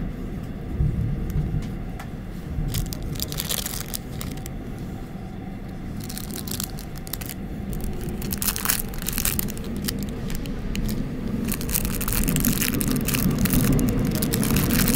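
Seoul Metro Line 6 subway train running, heard from inside the car: a steady low rumble that grows louder over the last few seconds, with scattered clicks and rattles.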